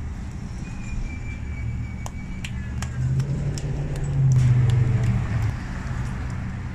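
Street traffic with a motor vehicle's low engine rumble swelling and passing, loudest in the middle. Over it come soft, regular slaps, about two a second, of hands patting a ball of corn masa flat into a gordita.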